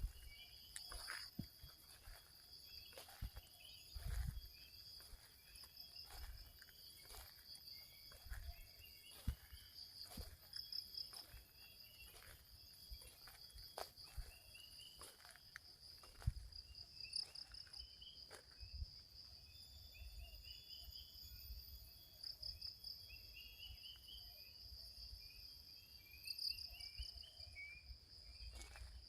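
Insects, crickets among them, trilling in a steady high-pitched drone, with runs of short rising chirps coming back again and again and scattered clicks and low thumps.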